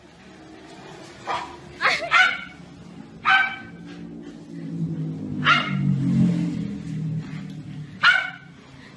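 A small dog barking in short, sharp, high-pitched yaps, about six barks spaced irregularly, with a low hum underneath that swells in the middle.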